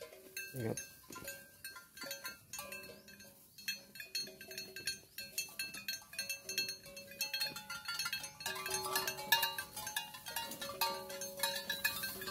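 Background music: held notes with quick high notes over them, growing louder in the second half. A short falling call sounds about half a second in.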